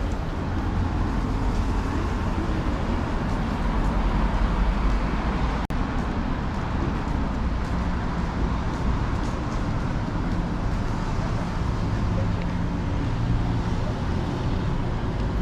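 Busy city street ambience: a steady rumble of road traffic with faint passers-by's voices mixed in. The sound drops out for a split second about six seconds in.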